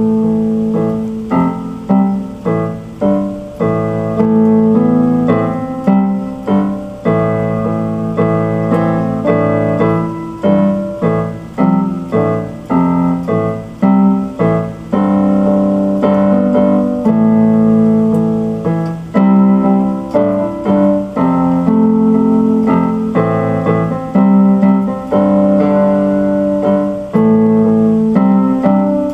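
Solo piano music played on an electronic keyboard: an instrumental piece of chords and melody notes, each struck note fading after it sounds.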